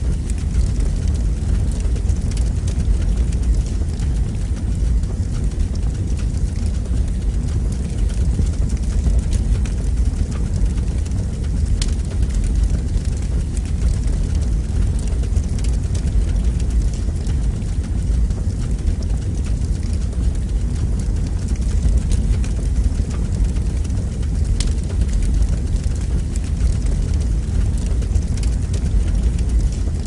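Fire burning in a fireplace: a steady low rumble, with a single sharp crackle near the middle and another a few seconds before the end.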